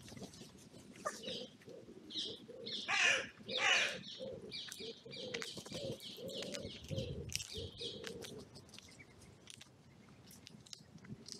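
Woodland birds calling: two loud, harsh crow caws about three seconds in, over a wood pigeon's repeated low cooing and small songbirds chirping.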